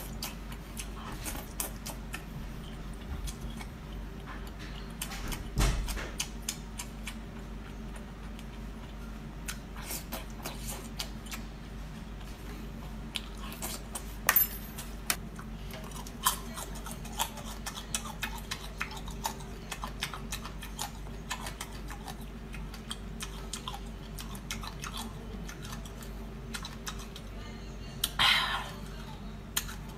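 Close-up mouth sounds of a person chewing a mouthful of chewy spicy octopus: many small wet clicks and smacks over a steady low hum. There are a couple of louder knocks along the way and a short louder sound near the end.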